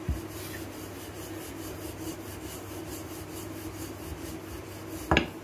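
Wooden rolling pin rolling out paratha dough on a marble rolling board: a steady rubbing, stroke after stroke, with a short thump at the start and a sharper knock near the end.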